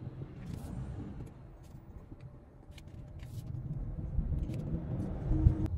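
Low, steady road and engine rumble inside a moving car's cabin, with a few faint clicks and a brief thump near the end.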